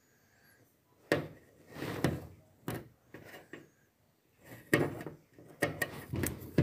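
Metal construction-kit parts of a model truck chassis being handled, giving a series of short knocks and rattles separated by brief quiet gaps.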